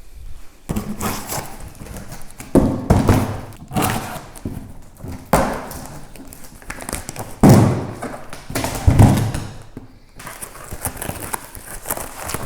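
Irregular thumps, knocks and clatter of hand tools and metal parts being handled during motorcycle repair work, with the heaviest knocks about two and a half, five and a half, seven and a half and nine seconds in.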